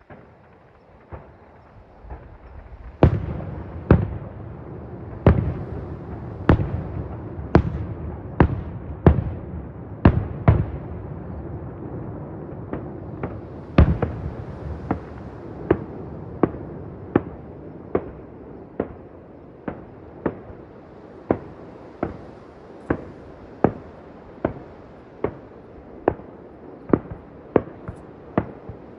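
Fireworks display: aerial shells bursting one after another, a sharp bang roughly every second, each with a short echoing tail, over a continuous rumble. The loudest bangs come in the first half.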